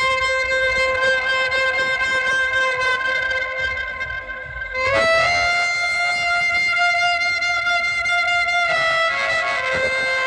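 Music through a loud DJ sound system: long held notes that dip briefly and step up to a higher pitch about five seconds in, then drop back near the end.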